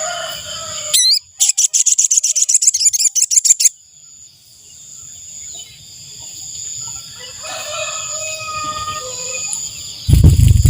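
Sogon bird lure call: a fast trill of sharp, evenly repeated notes, about ten a second, lasting two to three seconds, over a steady high insect buzz. A fainter, lower call follows later, and a loud thump comes near the end.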